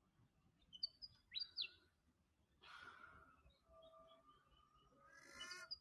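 Faint bird calls: a few short chirps and whistles about a second in, then a longer, drawn-out call toward the end.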